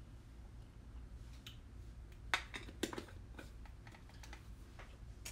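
A few scattered light clicks and taps of small makeup items being handled, set down and picked up, over a low steady room hum.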